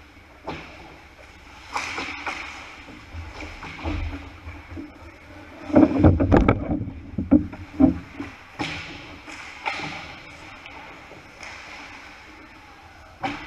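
Ice hockey play: skates scraping and sticks and puck clacking on the ice, with scattered sharp knocks. About six seconds in comes a burst of loud clattering knocks over a heavy thud, and a single sharp knock comes near the end.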